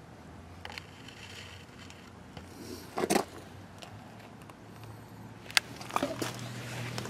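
Handling noises from hands-on work with parts and hardware: a short, loud scrape about three seconds in, then a sharp click and a cluster of small clicks and rattles near the end, over a steady low hum.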